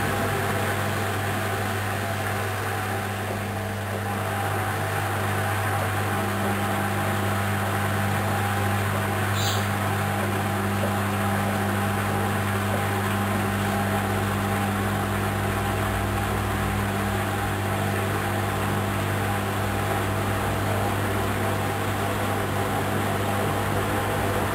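Hoover Dynamic Wash 10+ washing machine running on its mini-load programme: a steady, even mechanical hum with a low drone, a second higher tone coming in a few seconds in.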